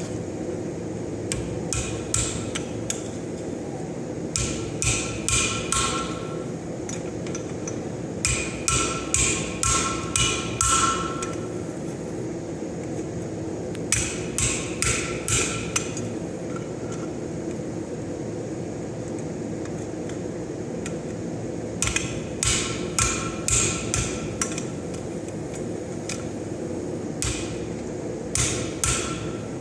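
Hand hammer striking steel on an anvil in short runs of three to six ringing blows, about six runs with pauses between, as a leaf blank is forged. A steady low hum runs underneath.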